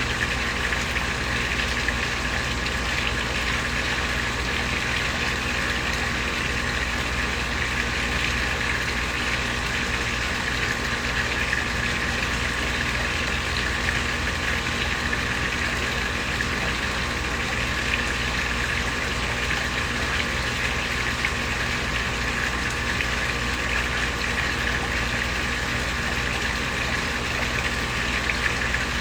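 Koi pond waterfall: water splashing steadily into the pond, with a low steady hum underneath.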